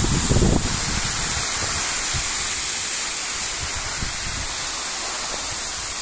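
A waterfall swollen by heavy rain, pouring and splashing onto a wet road close by: a steady, even rush of falling water.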